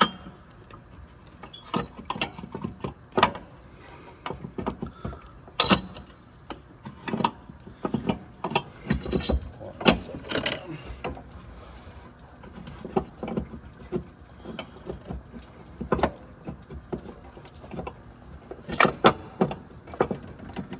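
Irregular metallic clunks, clicks and knocks of hand work in a car's engine bay, as tools and the water pump are worked loose, with a few louder knocks scattered through.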